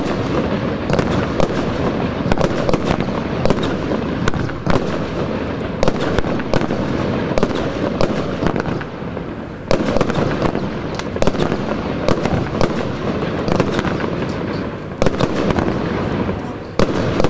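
Lesli 'One Million Blinkers' 33-shot firework cake firing shot after shot. Sharp bangs come every second or so over a continuous dense hiss.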